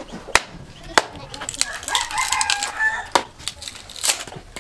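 A hand-forged axe knocks into a dry stick on a wooden chopping block, four sharp knocks as the stick is split. A rooster crows about two seconds in.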